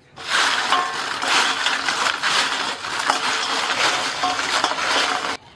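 Crisp fried potato chips being tossed together, a dense dry crackling and rattling that stops abruptly near the end, as the sprinkled chaat masala and red chilli powder are mixed through them.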